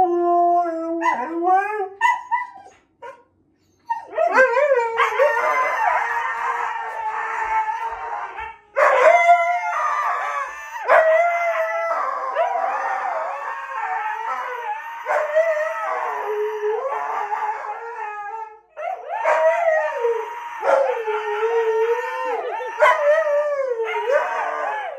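Siberian huskies howling long, wavering 'whoooo' calls that rise and fall in pitch, their voices overlapping. There is a short pause about three seconds in.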